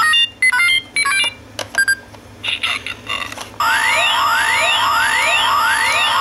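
Kamen Rider Ryuki Legend Series toy belt buckle playing electronic sound effects through its small speaker: first a few short runs of stepped beeps, then, as a card deck is slid into the buckle, a looping standby sound of rising sweeps over a steady tone, repeating about every 0.7 s.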